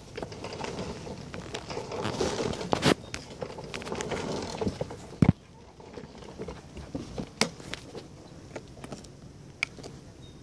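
Kids' electric ride-on four-wheeler rolling over asphalt, its plastic wheels and body rattling, with a sharp knock about three seconds in and another about five seconds in as the rattling stops. Scattered light clicks and knocks follow.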